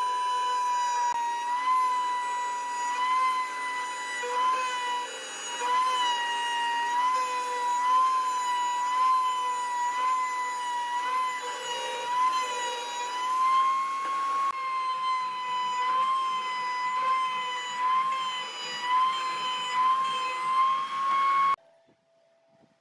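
Table-mounted router running a high, steady whine as a bearing-guided profile bit cuts the edge of a wooden ring, the pitch dipping and wavering slightly under load as the wood is fed around. It cuts off abruptly near the end.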